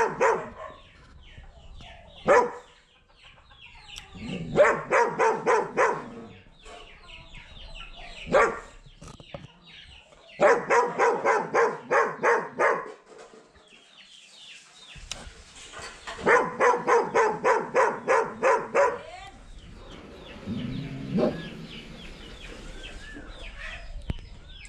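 Chickens clucking in three fast runs of calls, each a couple of seconds long, with single sharp calls in between and a short pitched call near the end.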